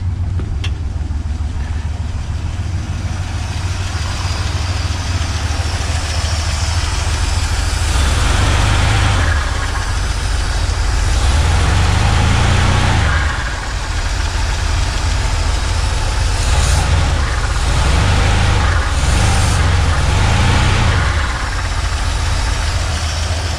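A 305 small-block Chevy V8 runs with a low rumble, then is revved once and blipped three or four more times, each time falling back to idle. It is running rough, with a noise the owner says doesn't sound too great and that kind of sounds like a bearing to him.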